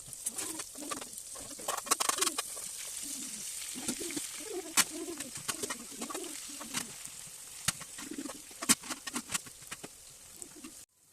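Pigeons cooing in low repeated phrases over a steady sizzle of food frying in a pan, with sharp clicks of a utensil against the pan; all of it cuts off abruptly near the end.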